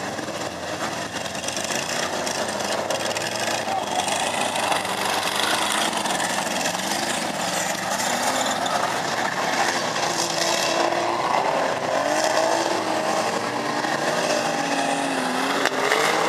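Engines of several banger racing cars running and revving together on a dirt track, their pitches rising and falling as the drivers accelerate and lift off, most clearly in the second half.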